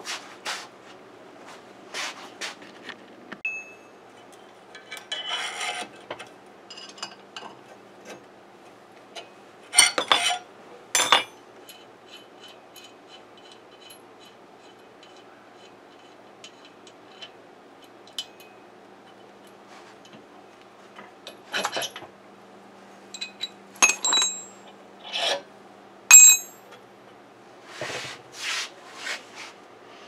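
Metal parts and tools clinking, knocking and scraping on a bench grinder's shaft and flange as they are worked off by hand. The clinks and knocks are scattered, some with a short metallic ring, and the loudest come about ten seconds in and again a few seconds before the end.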